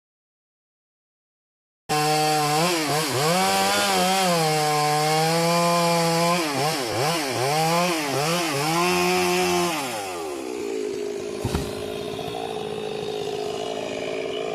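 About two seconds of silence, then a two-stroke chainsaw running hard while cutting through wood, its pitch dipping and recovering again and again as it bogs under load in the cut. About ten seconds in it drops to a lower, quieter speed, with a single sharp knock a little later.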